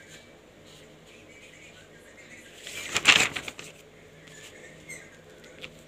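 A notebook page being turned: one loud rustle and flap of paper about three seconds in, with faint paper-handling ticks around it.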